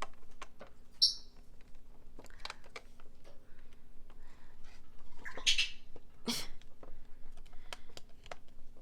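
Small plastic toy-fridge parts clicking and tapping as they are handled and fitted together, with a short high squeak about a second in and two brief scraping rustles around five and six seconds in.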